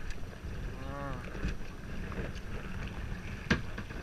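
Wind rumbling on the microphone of a kayak on the river, with water noise. A brief pitched, voice-like sound comes about a second in, and a single sharp knock near the end, such as a paddle striking the hull.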